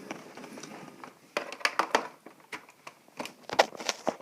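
Irregular clicks and knocks of plastic cable plugs being handled and pushed into the back of an Xbox One console, about ten sharp knocks from a second and a half in.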